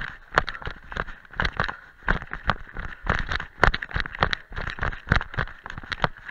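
A runner's trail shoes striking a dirt and rocky path on a fast descent, quick slightly irregular footfalls about three a second over a steady hiss.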